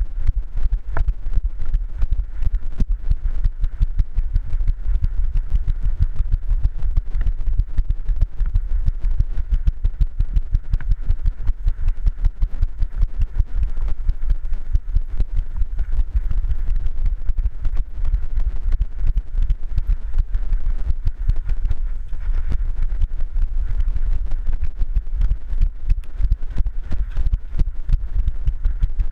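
Dog-mounted action camera jostling on a running dog: a rapid, regular run of knocks and rattles with each stride over a heavy low rumble of handling and wind noise on the microphone.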